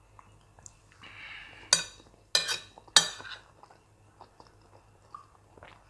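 Metal spoon scraping across a plate, then clinking sharply against it three times.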